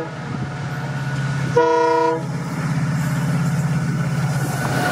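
Twin WDG4 diesel-electric locomotives, each with an EMD 16-cylinder two-stroke engine, approach under power with a steady low engine rumble. About a second and a half in, the locomotive's air horn gives a short blast of about half a second.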